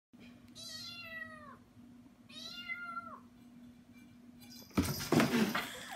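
Kitten meowing twice, each call about a second long and dropping in pitch at its end. This is followed near the end by a louder, noisy burst.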